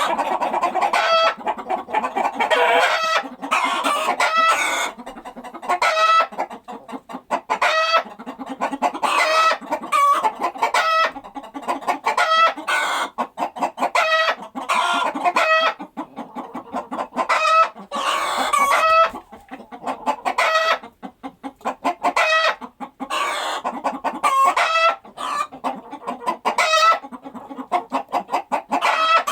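Chickens clucking: a continuous run of short, pitched clucks, often several a second, with hardly a pause.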